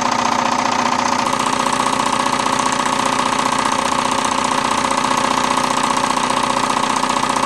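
Wilesco D20 toy live steam engine running steadily at speed under load, driving a dynamo. It makes a rapid, even beat of steam exhaust and mechanical clatter, a little louder about a second in.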